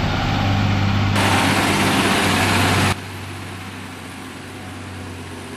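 Heavily loaded Tata truck's diesel engine working under load up a steep hairpin climb, a steady low drone. A loud hiss joins it for about two seconds. The sound then drops abruptly and the engine drone carries on quieter.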